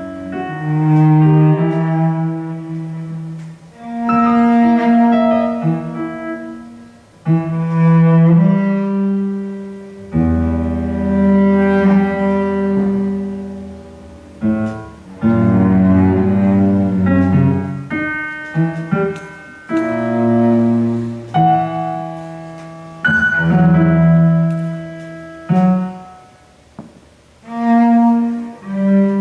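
Bowed cello playing long held notes that swell and fade in phrases of a few seconds, with keyboard tones alongside.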